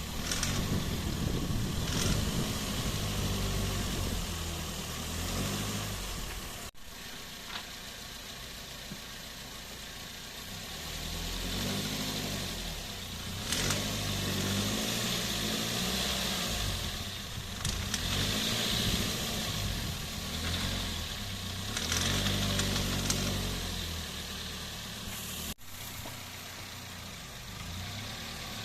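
2007 Toyota Yaris 1.3 petrol engine pulling away in low gear under load several times, engine speed rising and falling, carrying the strange noise that appears only under load; the noise was traced to a worn serpentine (auxiliary) belt.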